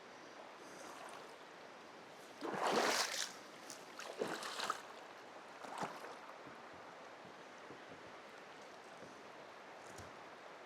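River water washing around a kayak, with three short, louder splashes about two and a half, four and a half and six seconds in, and a single sharp click near the end.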